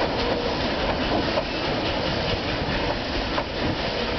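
Puffing Billy's narrow-gauge wooden passenger carriages rolling past: a steady rumble of wheels on the rails, with scattered clicks over the rail joints.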